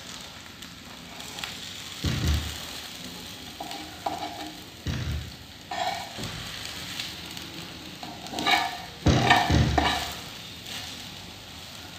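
A thin crepe sizzling on a flat pan while a spatula scrapes and folds it over, with a few dull thumps about two, five and nine seconds in.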